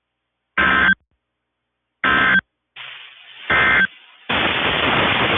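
NOAA Weather Radio EAS end-of-message code: three short bursts of digital data tones, about a second and a half apart, heard through a radio receiver. Near the end the broadcast drops off and loud radio static takes over.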